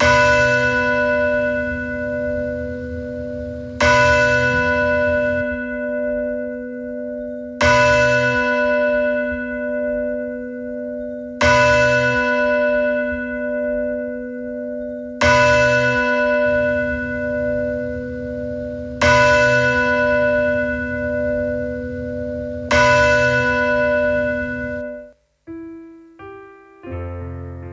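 A bell struck seven times, about four seconds apart, each stroke ringing on and fading. Near the end a piano starts playing.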